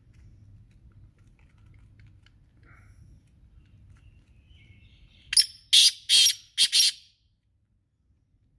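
Black francolin calling: a faint lead-in note, then a quick run of about five loud, harsh, grating notes about five seconds in, all over in under two seconds.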